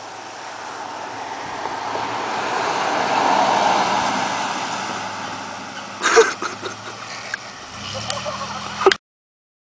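A car driving past: its road noise swells to a peak about three and a half seconds in, then fades away. A few short sharp sounds follow about six seconds in, then a low hum that cuts off abruptly near the end.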